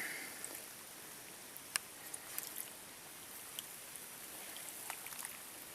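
Faint steady outdoor hiss with a few scattered light ticks, the sharpest a little under two seconds in.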